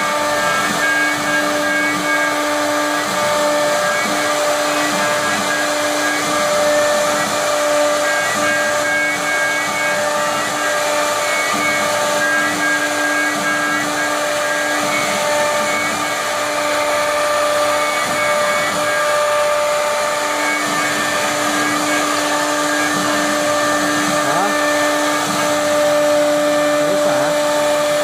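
Three-spindle CNC router running, its spindle giving a steady whine in several pitches over a constant rushing noise as it routes a wood board.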